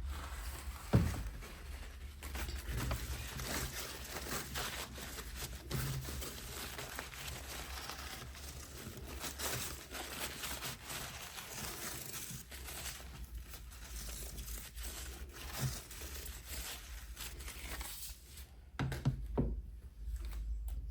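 Surface cleaning by hand: continuous rubbing and wiping with a crinkly cloth or paper towel. A single knock about a second in and a few knocks near the end as items are handled and set down.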